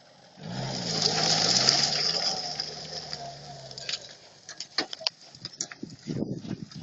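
UAZ-469 engine revving for about three and a half seconds: it rises quickly, holds a steady pitch and then fades away. A run of irregular clicks and knocks follows near the end.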